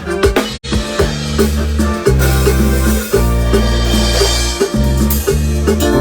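Loud music with a deep, heavy bass line and drums, played at a sound check. It cuts out completely for an instant just after half a second in, then carries on.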